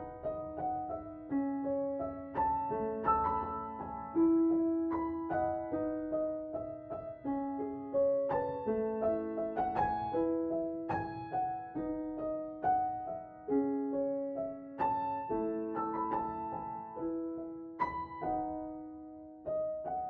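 Background piano music: single notes and chords struck one after another at an unhurried pace, each ringing and fading.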